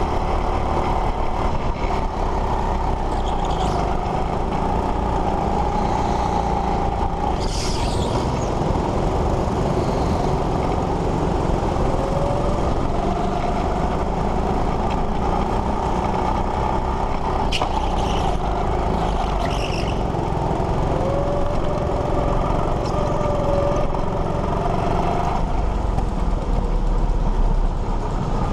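Go-kart engine running at speed, its pitch rising and falling as the kart brakes and accelerates through the corners, over a steady rumble. A few brief high-pitched squeals cut in about a quarter and two-thirds of the way through.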